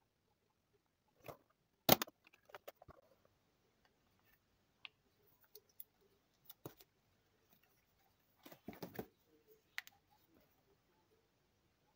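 Handling noise of a vacuum-sealed plastic food bag: scattered crinkles and light clicks, with one sharp click about two seconds in and a short flurry of crinkling a little past the middle.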